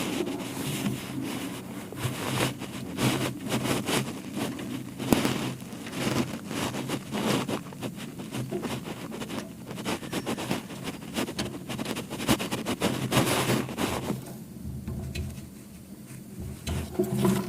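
Rapid, irregular clattering and rustling of hands handling things, over a steady low hum; the clatter dies down about fourteen seconds in.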